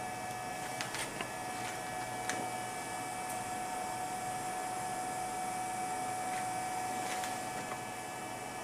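Steady machine hum with one steady tone from the running plate reader and laptop, with a few faint computer mouse clicks as the software is opened.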